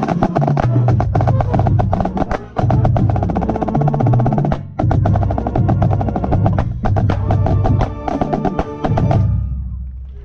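Marching band playing, with the snare drum line close and loud, its rapid strokes and rolls over held brass chords. The piece ends about nine seconds in and fades out.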